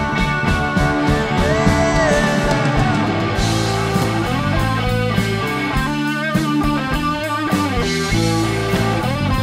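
Live blues band playing an instrumental passage: electric guitar holding and bending sustained notes over bass guitar and a steady drum beat.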